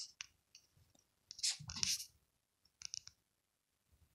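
Soft rustling of fur and bedding as a hand strokes a cat, in three or four short bursts, the longest about one and a half to two seconds in.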